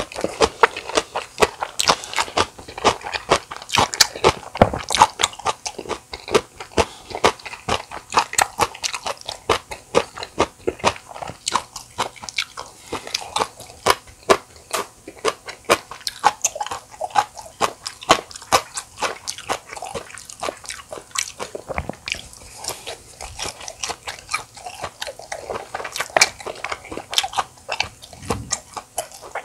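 Close-miked chewing of a mouthful of spicy bibimbap: a continuous run of wet crunching and crackling bites.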